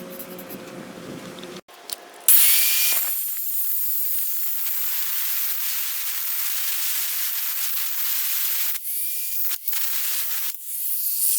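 A power tool cutting through a 2.5-inch exhaust extension pipe: a loud high hiss starts about two seconds in, with a brief pause and a restart near the end.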